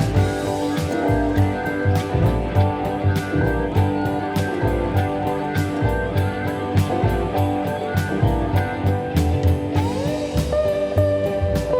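Instrumental background music led by guitar, with bass and drums keeping a steady beat; gliding slide-guitar notes come in near the end.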